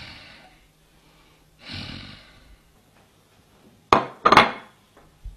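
A person sighs heavily twice, then about four seconds in there is a sharp knock and a short clatter as a plate with a fried egg is handled on a table.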